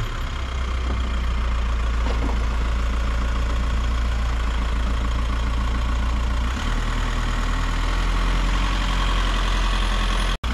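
A vehicle engine idling steadily just after starting, a low hum whose lowest note shifts about two-thirds of the way through. The sound drops out for an instant just before the end.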